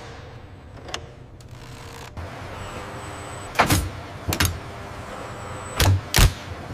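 Factory machinery hum, with a series of short mechanical whooshes in the second half; the last two, close together near the end, are the loudest.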